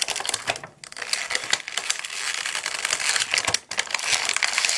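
Plastic toy packaging crinkling and crackling in irregular bursts as a small figure is worked out of it by hand, with two brief pauses.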